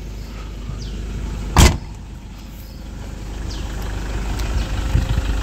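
Rear tailgate of a Toyota Innova slammed shut, one sharp bang about a second and a half in, over the steady low running of the car's 2KD diesel engine at idle.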